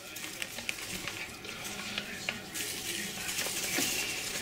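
Flour being shaken out of a paper bag into a plastic mixing bowl: a soft, even hiss of paper rustling and falling flour with scattered small clicks.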